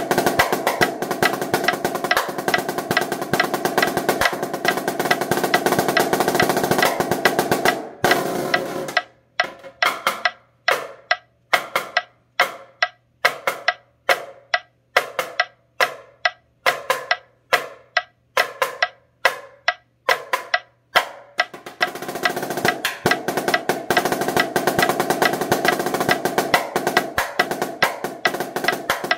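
Marching snare drum played with sticks: fast, dense rolls and runs of strokes, thinning about a third of the way in to single strokes about two a second, each ringing briefly, for some twelve seconds before the dense rolls return.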